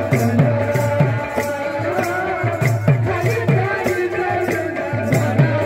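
Live Odia kirtan folk music: double-headed barrel drums beaten in a fast, steady rhythm, their low bass strokes falling in pitch, with clashing hand cymbals and a wavering melody line above.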